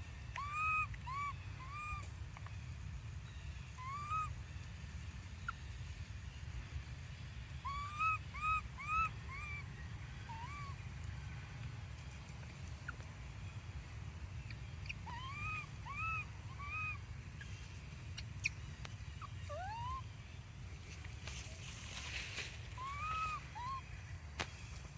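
Baby macaque giving short, arched, whistle-like coos in groups of two to four every few seconds, with one longer rising call about twenty seconds in: the cries of an infant that is being kept from nursing.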